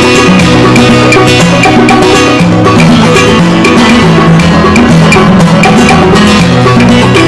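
Loud background music with a steady drum beat over a stepping bass line.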